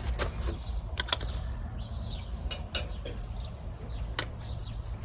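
Scattered light clicks and taps of cooking utensils working chapati in a pan, about six in five seconds over a steady low rumble.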